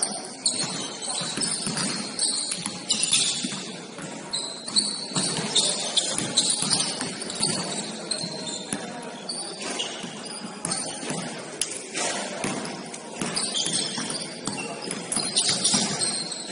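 Basketball game in a gym: a ball bouncing on the court in repeated knocks, short high sneaker squeaks, and players' voices.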